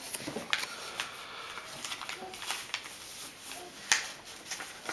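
A sheet of paper rustling and crinkling as it is folded and creased flat by hand, with short crisp crackles, the sharpest about four seconds in.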